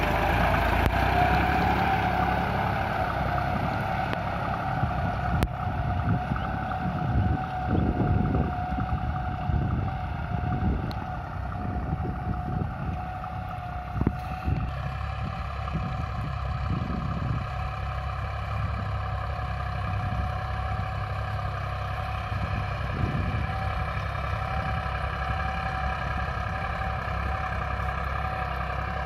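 Deutz-Fahr tractor's diesel engine running steadily under load while pulling a tine cultivator through dry field soil, a constant engine hum with a high steady whine. Wind gusts on the microphone in the first half.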